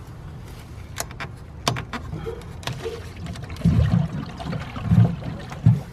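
A rain barrel's PVC ball valve is opened to let water into the pipe beneath, with a faint water trickle. Two sharp clicks come about a second in, and low thumps and rumbles follow near the end.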